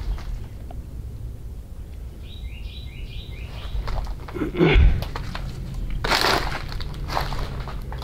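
Footsteps on an overgrown forest floor, with a loud crunch or thump about halfway through and more scuffing steps after it. A bird gives a quick run of about six short chirps a little over two seconds in.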